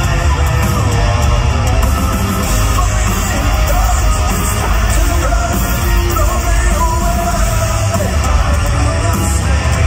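A live hard rock band playing loud through an arena sound system: distorted electric guitars, bass and drums with sung and shouted vocals, heard from within the crowd in a large hall.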